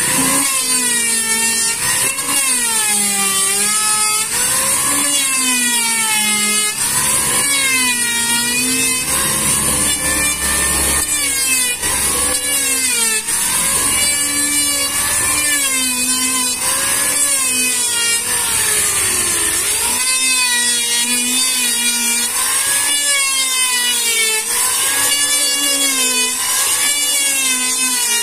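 Electric hand planer running and cutting wood in repeated strokes, its motor whine dipping under load and rising again about once every second or so.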